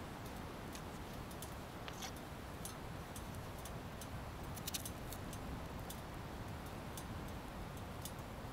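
Sharp, irregular clicks and ticks, about two a second, over a steady low rushing background.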